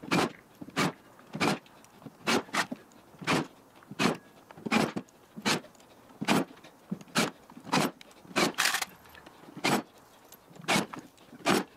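Cordless drill/driver driving screws through rail tie plates into plastic railroad ties, in short repeated bursts of about three every two seconds.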